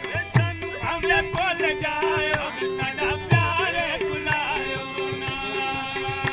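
Hindko mahiya folk music: a harmonium plays steady reedy chords and a repeated short note. A voice sings with bending, ornamented pitch in the first half, and a hand drum gives two deep strokes whose pitch falls.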